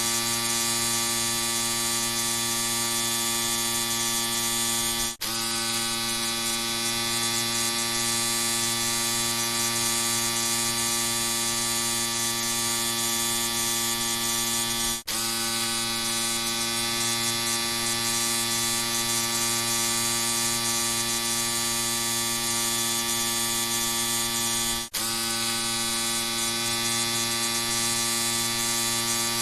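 Electric shaver buzzing steadily, breaking off for an instant about every ten seconds.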